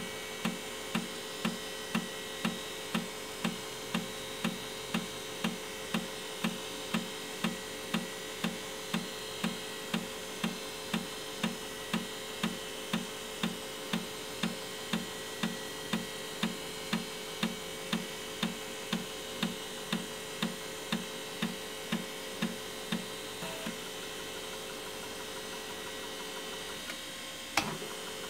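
Floppy disk drive formatting a disk: the head steps track to track with a short thump about twice a second over a steady hum. The stepping stops about 23 seconds in, and a single click comes near the end.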